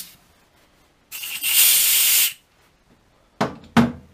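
Compressed-air blow gun giving a single blast of about a second, a loud hiss, clearing swarf from a freshly tapped hole in a workpiece held in the lathe chuck. Two sharp knocks follow near the end.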